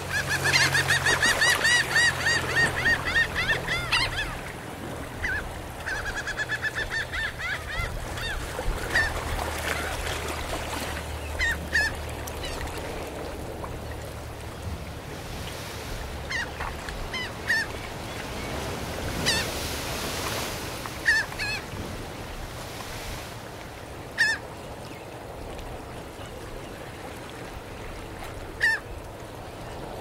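Gulls calling over the steady wash of gentle surf on a sandy shore. A rapid run of repeated calls fills the first few seconds, a shorter run follows, then single calls come every few seconds.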